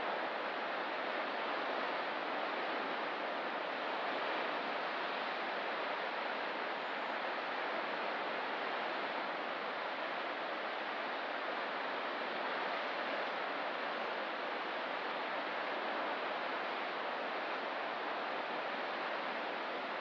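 Steady, even wash of distant ocean surf, with no single breakers standing out.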